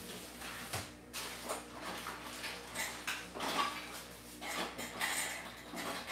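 Glass jars and metal canning lids being handled, giving a series of irregular clinks and clatters, some with a brief ring.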